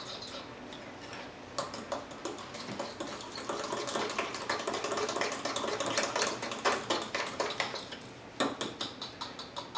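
Fork beating a runny batter in a glass bowl: a fast run of light clicks and scrapes of metal on glass, starting about a second and a half in, pausing briefly near the end, then going on again.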